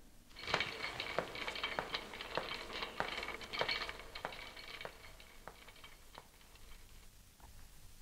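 Footsteps clicking on a hard floor, about ten even steps a little over half a second apart, growing fainter as the walker moves away and dying out about six seconds in.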